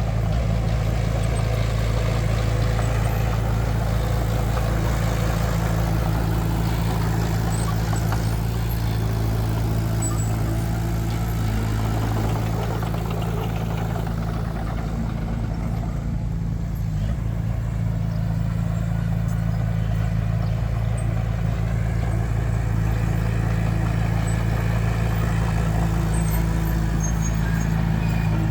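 Heavy construction machine's diesel engine running steadily at a constant speed, a loud low hum with an even drone.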